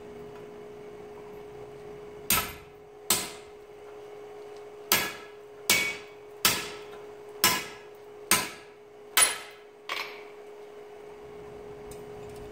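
Hand hammer striking a hot 1-inch square steel bar on an anvil: nine blows in an uneven rhythm, each ringing briefly. A steady hum runs underneath.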